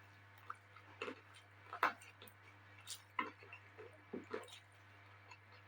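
Close-miked eating sounds: irregular wet smacks and clicks of a mouth chewing, about half a dozen over a few seconds, over a steady low electrical hum.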